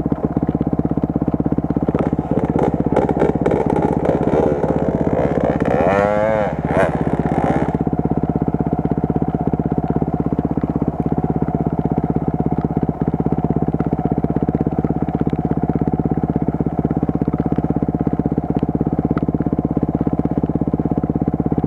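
Enduro motorcycle engine running steadily, revved up and down between about two and eight seconds in, then settling back to an even running note.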